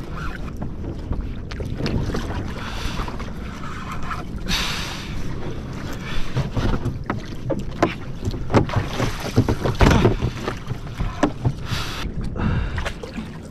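Wind buffeting the microphone and water washing against a kayak hull at sea. In the second half comes a run of sharp clicks and knocks as the angler works the rod and reel.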